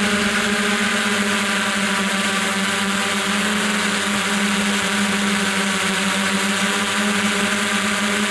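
Multirotor drone's electric motors and propellers whining steadily in flight: one even, buzzing hum with a strong low tone and a stack of overtones.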